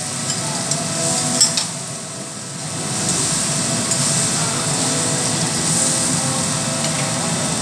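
Food sizzling on a teppanyaki hot-plate griddle, a steady hiss, with a couple of sharp clicks about one and a half seconds in.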